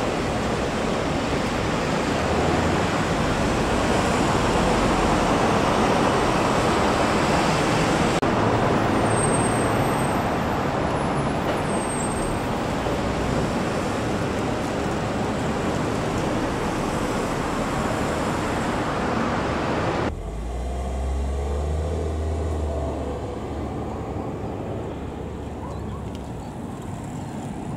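Steady road traffic noise from passing vehicles. About twenty seconds in it cuts suddenly to a quieter stretch with a low rumble.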